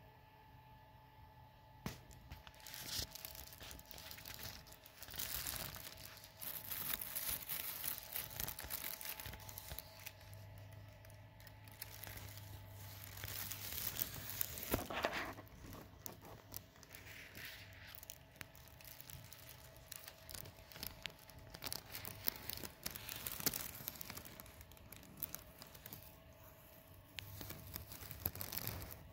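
Thin plastic sheeting crinkling and rustling in irregular bursts as it is brushed and handled.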